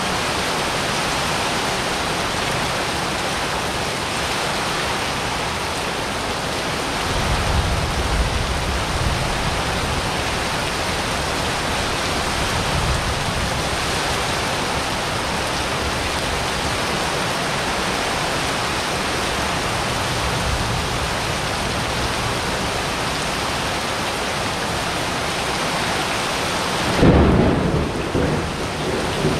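Steady rain of a thunderstorm pouring onto a wet paved patio, with low thunder rumbling about a quarter of the way in and a louder crack of thunder near the end.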